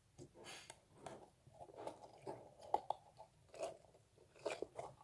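Sticky pink slime being pulled and stretched out of a plastic tub, giving faint, irregular sticky clicks and crackles.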